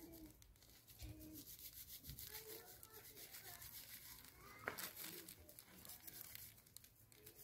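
Hands rubbing dried Rhus chinensis (Chinese sumac) fruit clusters over a woven bamboo tray: a faint dry rustling and crackling as the seeds are stripped off, with one sharper click a little past the middle.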